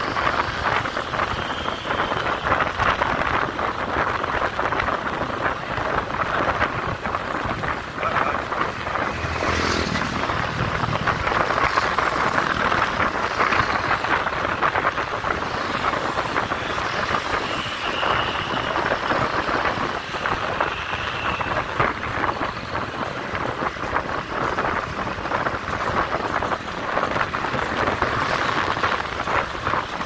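Wind rushing over the microphone of a moving motorbike, mixed with the steady running of the small motorbikes and scooters riding alongside.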